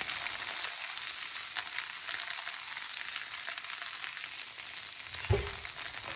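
Soaked sago pearls and potato cubes sizzling in oil in a nonstick pan, a steady crackling hiss with fine pops. A brief low thump about five seconds in.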